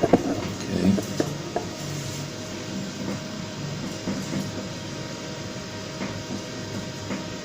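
HP ProLiant ML350 Gen9 server running after power-on, its cooling fans making a steady hum with a few thin steady tones. A few light handling clicks in the first second or so.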